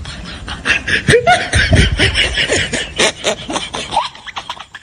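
A person laughing in short bursts over a rapid, continuous crackle of clicks.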